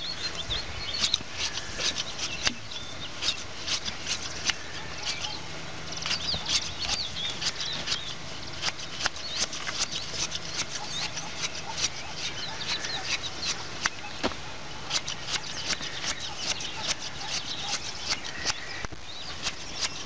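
Hand blade shears snipping through a sheep's fleece: a long run of repeated crisp snips, a few each second.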